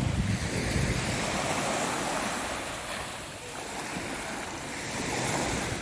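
Sea waves washing onto the shore, swelling and fading, with wind buffeting the microphone near the start.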